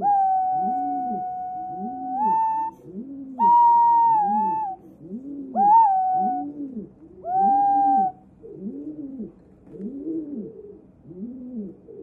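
White-bellied green pigeon singing: four long whistled notes in the first eight seconds. The first is held about two and a half seconds and steps up in pitch at its end; the later ones are shorter and bend in pitch. Underneath, a low rising-and-falling sound repeats about once a second throughout.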